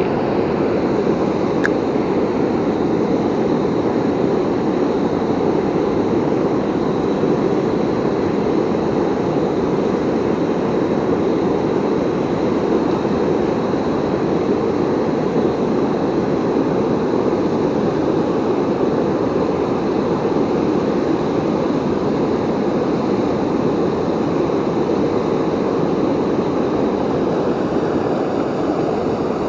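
River waterfall rushing: a steady, even wash of falling water that does not change.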